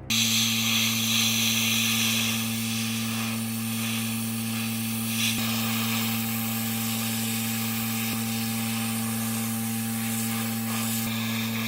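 A power tool running steadily, with a constant low motor hum under a rough, rasping hiss, typical of sanding or abrading rusty car bodywork. A few faint ticks come through it.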